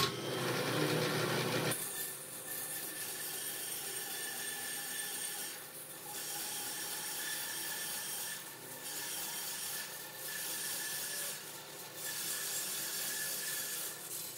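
Vertical band saw cutting lengthwise through a charred log, a steady rasping cut with a faint whine. It is louder for the first second and a half, then dips briefly about three times as the log is fed.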